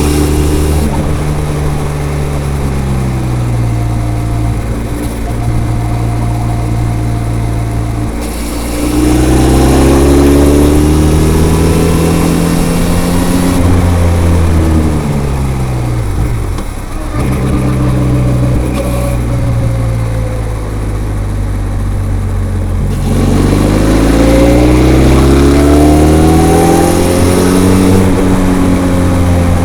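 Benelli TRK 502's parallel-twin engine through its stock, unmodified exhaust while riding: steady at first, then pitch rising as it accelerates about eight seconds in, falling as it slows around sixteen seconds, and rising again under acceleration from about twenty-three seconds.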